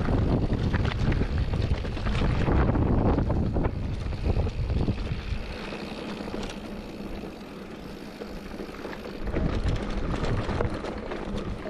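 Wind buffeting the microphone over the noise of mountain bike tyres rolling on loose rock and gravel, with frequent knocks and rattles of the bike over the rocks. Loudest in the first half, easing after about five seconds, with a brief rise again near the end.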